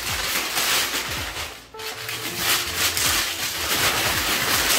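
Sheets of white packing paper rustling and crinkling as they are pulled off a piece of furniture and tossed aside, with a brief lull about a second and a half in.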